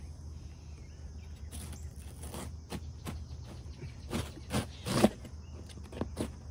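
Box cutter slicing through the cardboard of a large shipping box, a series of short irregular cutting strokes, the loudest about five seconds in. Insects chirring steadily in the background.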